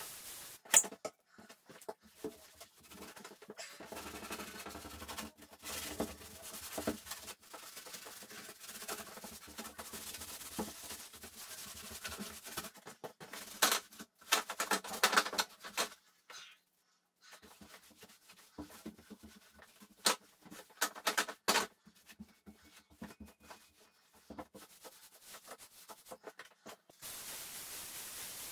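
Gloved hand wiping and scrubbing a painted wooden door, rubbing in irregular spells with short pauses and a few sharper scuffs.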